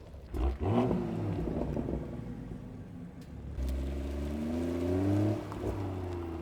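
BMW M240i (G42) B58 turbocharged inline-six breathing through a Valvetronic Designs valved sport exhaust, accelerating in a drive-by. A sudden burst of revs comes about half a second in, then a longer pull in the second half with the engine note climbing in pitch until the throttle lifts about a second before the end.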